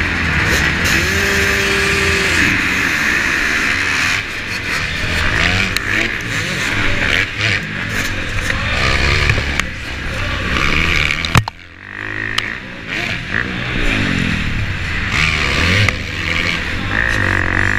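Motocross bike engines running and revving on a dirt track, rising and falling in pitch as the bikes accelerate and back off. There is a sharp knock about eleven seconds in, followed by a brief lull.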